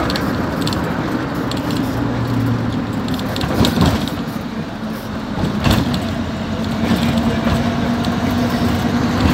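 Cabin sound of a moving road vehicle: steady engine drone and road noise, with loose fittings rattling and a couple of sharp knocks about four and six seconds in.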